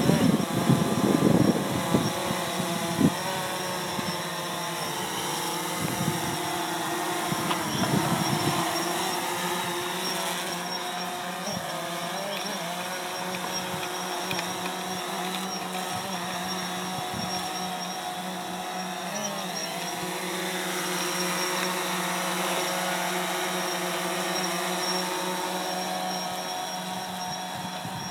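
Quadcopter drone's propellers buzzing as it flies low and manoeuvres, several motor tones wavering in pitch, with louder low rumbles in the first few seconds.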